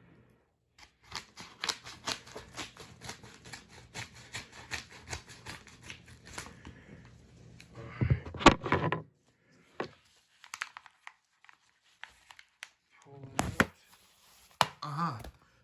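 A mailing package being torn open by hand, its wrapping crackling and crinkling in a fast run of small tears, followed by a few louder handling rustles and knocks as the contents are pulled out.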